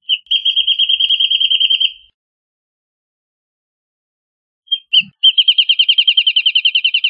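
Wrentit singing two songs. Each opens with one or two separate high notes, then runs into a fast series of about ten notes a second; the first ends about two seconds in, and the second begins near the end.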